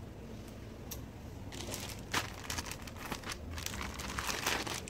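Clear plastic packaging bag crinkling as it is handled and opened by hand, in irregular rustles that start about a second and a half in.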